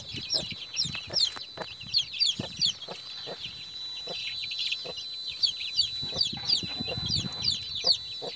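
A brood of day-old chicks peeping in a continuous stream of short, high, falling chirps, several a second, with a broody hen clucking low among them.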